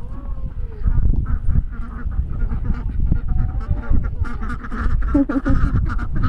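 A group of domestic waterfowl honking and calling over a heavy low rumble. A few gliding calls come first, and the calling grows busier and more rapid from about two thirds of the way in.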